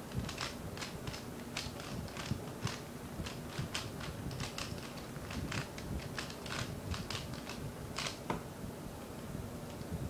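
A 3x3 speedcube being turned quickly by hand, a fast irregular run of sharp plastic clicks as the layers snap round while it is scrambled for the next solve. The clicking stops about eight seconds in.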